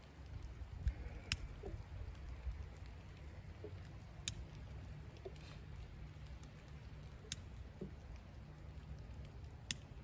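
Sticks and kindling being handled in a stone fire pit: a few sharp snaps and clicks, about every three seconds, over a low steady rumble.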